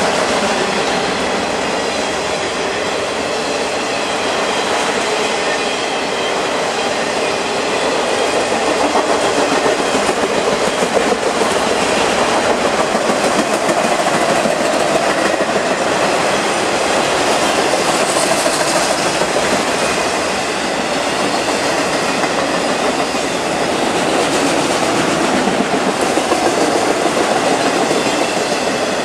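Freight train of enclosed autorack cars rolling past, a steady loud noise of steel wheels on rail that swells and eases slightly as the cars go by.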